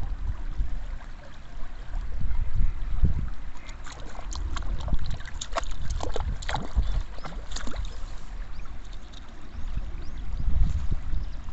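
Wind buffeting the microphone over a running stream. In the middle comes a run of small splashes and clicks as a Cayuga duck wades and dabbles in the shallow water.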